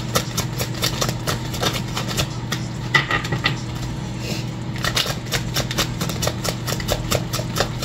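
Oracle cards being shuffled by hand: a quick, irregular run of light clicks and slaps as the cards are cut and pushed through the deck, with a steady low hum underneath.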